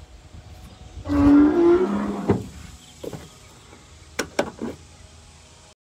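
A loud sound of just over a second, a steady pitch that steps up and then down, followed by a knock and then a quick run of sharp clicks near the end from a rotary battery disconnect switch being turned.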